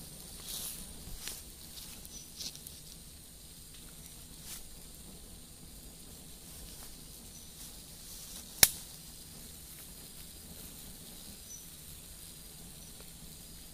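Flame of a burning tyre torch on a bamboo pole hissing and crackling faintly as it is held into a wasp nest in the ground, with one sharp crack about eight and a half seconds in. Faint insect chirps behind it.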